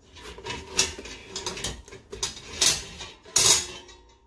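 Metal tongs clicking and scraping against a stainless steel pot and its wire steaming rack as a steamed lobster is lifted out, several separate clatters with the loudest, longest scrape near the end.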